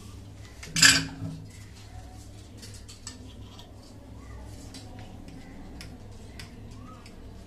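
A sharp knock about a second in, then small metallic clicks and clinks as a metal tin of PVC solvent cement is handled and its screw lid is twisted off.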